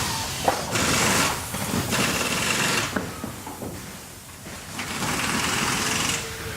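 Factory machinery running, with noisy cycles that swell and fade every second or two and a sharp mechanical click about half a second in.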